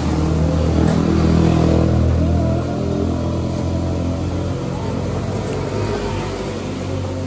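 A motor vehicle's engine running with a deep, steady hum; it is loudest over the first two and a half seconds, then eases off a little.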